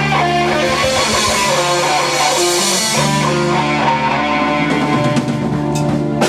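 A live band playing, with electric guitar to the fore over sustained bass notes; the upper part thins out about three seconds in, and there is a short sharp hit near the end.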